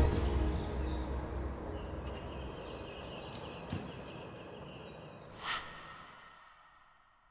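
Outdoor ambience fading out, with a series of high trilling chirps in the middle and one short rushing swish about five and a half seconds in, before it dies away to silence.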